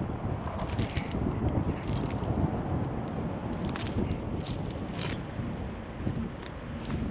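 Steel tire chains clinking and rattling in short bursts as they are handled, over a steady low rumble.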